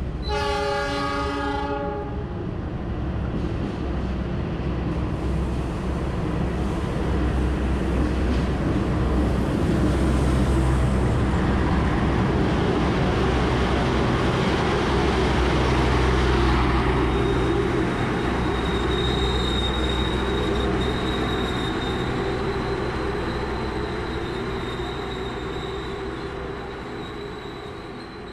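A train passing close by on the next track: a horn blast of about two seconds at the start, then the locomotive's engine and the carriages rolling past in a loud rumble that builds toward the middle and fades near the end. A thin high squeal joins in the second half.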